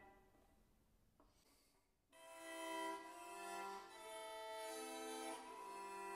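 Solo violin. A plucked chord rings away into near quiet and there is a faint short pluck about a second in. About two seconds in, soft sustained bowed chords of several notes begin, swelling and changing as they go.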